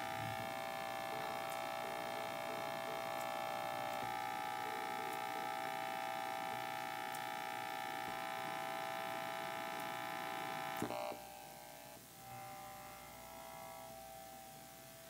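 Steady electrical buzz, a stack of high even tones like a mains hum. About eleven seconds in there is a click and the buzz drops to a fainter level.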